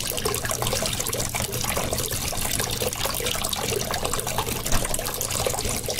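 Small tabletop cascade fountain running: water splashing and trickling steadily from its tiered bowls into the pebbled basin below.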